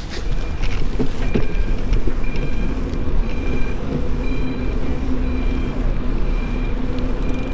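Riding a bicycle over city asphalt: wind on the camera microphone and a steady low road rumble, with a few knocks in the first second and a half. A faint short high chirp recurs about once a second.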